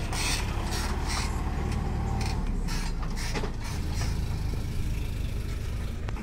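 Tractor's diesel engine running steadily, with irregular knocks and rattles over it.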